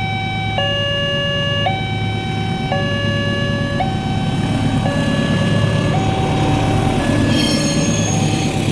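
Railway level-crossing warning siren sounding a two-tone hi-lo alternation, each tone about a second long, over a steady low hum. About seven seconds in, a rushing noise with high squeals joins it.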